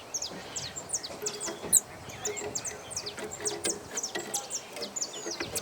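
Several small birds chirping, with rapid, overlapping short high notes throughout and one louder sharp note just under two seconds in.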